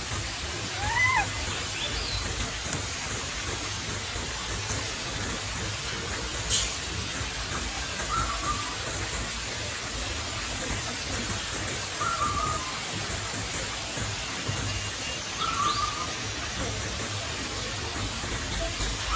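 Short high squeaks and chirps from young macaques every few seconds, one rising chirp about a second in, over a steady outdoor hiss.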